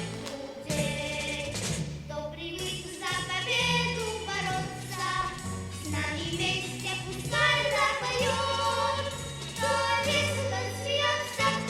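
Background music for a stage dance: a song with singing voices over a steady bass line.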